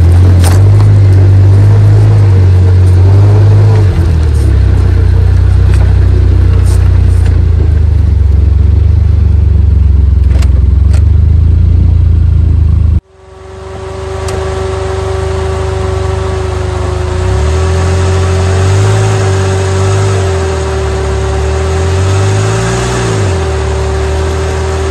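Suzuki Jimny JB23's small turbocharged three-cylinder engine running under load while off-roading, a loud low drone. About halfway through the sound cuts abruptly. After the cut the engine note rises and falls with the throttle, with a steady high whine running over it.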